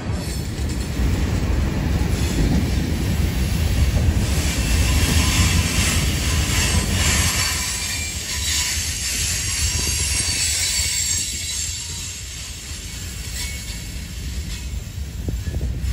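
Freight cars rolling past: a steady low rumble of steel wheels on rail with a high hiss and some wheel squeal on the curve. It eases somewhat in the second half.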